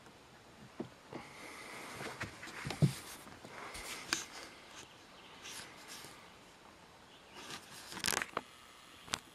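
Irregular scuffs, knocks and rustles of someone stepping over granite rock and brushing through dry grass and twigs. The sharpest knock is about three seconds in, with another cluster near the end.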